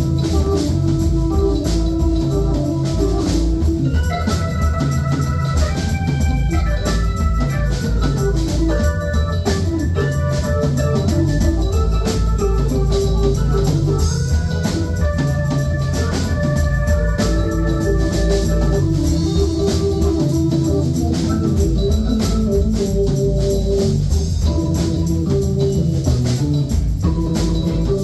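Live rock band in an instrumental jam: an organ takes the lead, holding and stepping between notes over electric bass, guitar and a steady drum-kit beat.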